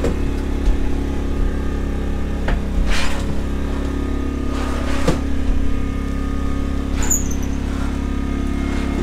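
Generator running with a steady drone, with two brief sliding swishes from kitchen drawers on ball-bearing slides being worked.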